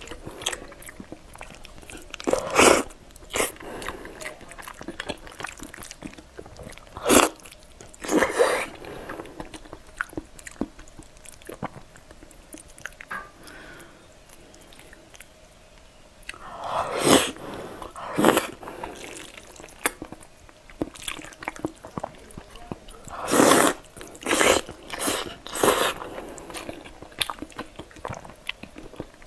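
Close-up eating sounds: bites and wet chewing of glazed grilled eel and thick sauced noodles. Short loud bursts come every few seconds between quieter chewing.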